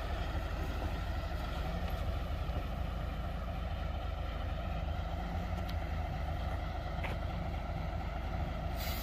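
Heavy diesel engine running steadily at low speed while the vehicle or machine is slowly manoeuvred into position.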